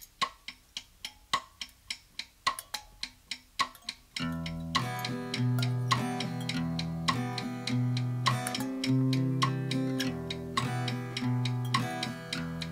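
Instrumental intro of a song: a sharp percussive strike pattern, about three strikes a second, plays alone at first. About four seconds in, plucked guitar and low sustained notes join underneath and carry on with the percussion.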